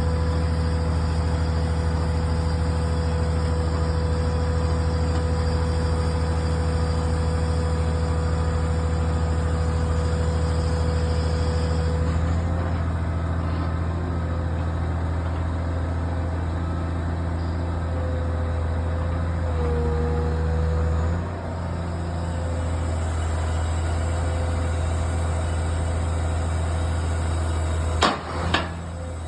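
Caterpillar 345CL high-reach demolition excavator's diesel engine running steadily, with a steady whine over the low drone. About two-thirds through, the engine note drops and quietens, and near the end come two sharp knocks in quick succession.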